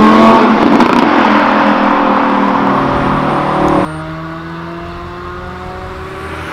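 Second-generation Audi R8's V10 accelerating hard, its pitch climbing briefly after a gear change and then fading as the car pulls away. About four seconds in it cuts abruptly to an Audi S6 (C7) 4.0 TFSI twin-turbo V8 idling steadily, much quieter.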